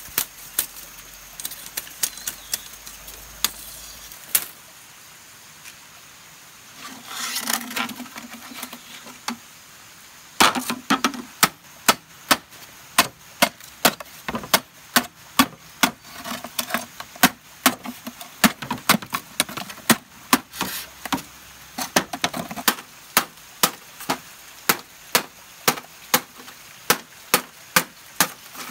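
Bamboo being chopped with quick, sharp blows, about two a second, that run steadily through the second half. Before that there are a few scattered strikes, a pause, and a short rasping scrape.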